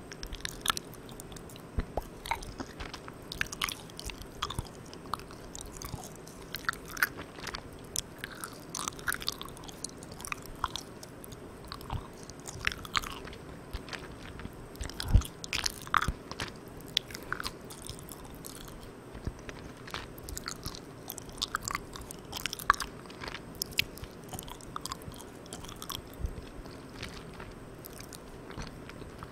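Close-miked chewing of Malang Cow soft, sticky milk candy: irregular wet, sticky mouth clicks and smacks, with one sharper snap about halfway through. Underneath runs a steady hiss from a recorder with its gain turned all the way up.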